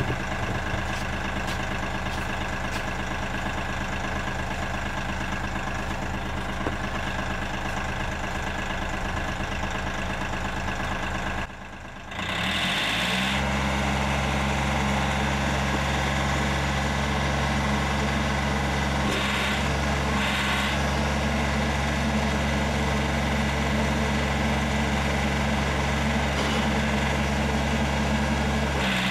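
Compact tractor engine idling steadily while warming up. About twelve seconds in the sound drops out briefly, then the engine speeds up and settles into a louder, steady run.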